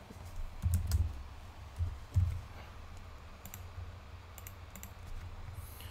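Scattered clicks of a computer mouse and keyboard, a handful of short sharp clicks spread across a few seconds, with a few soft low thumps in the first couple of seconds.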